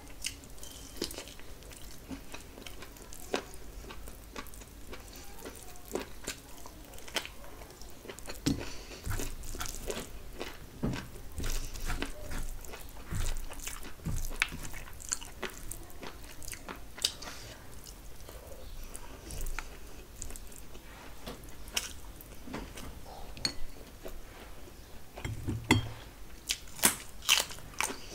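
Close-miked chewing of handfuls of mutton biryani eaten by hand. It is full of short, sharp clicks, which come thickest near the end.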